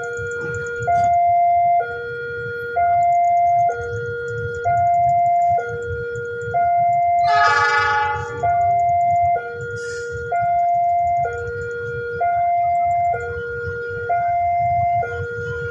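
Railway level-crossing warning alarm sounding, an electronic two-tone signal alternating high and low about once a second, the warning that a train is approaching. A short train horn blast about seven and a half seconds in, with a low rumble beneath.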